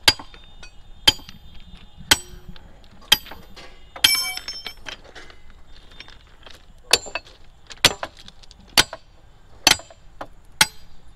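Sharp metallic clinks of steel track tools striking rail fastenings and fittings, about one a second, with a pause of about two seconds midway. One strike about four seconds in rings on.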